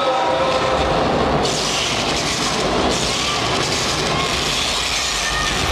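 Dense din of a crowd in a gymnasium with music underneath; the crowd noise swells about a second and a half in.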